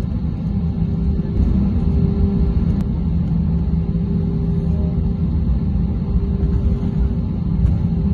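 Airliner cabin noise inside an Airbus A321-200 on the ground: a steady low rumble of the engines and airframe with a constant hum, not rising in pitch.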